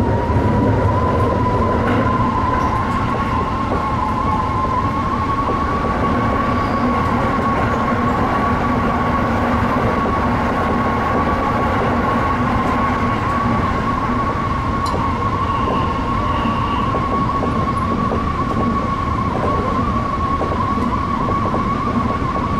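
Tsukuba Express TX-2000 series electric train running on the line, heard from the cab: a steady rumble of the train under way, with a thin high whine that rises slightly over the first few seconds and then holds level.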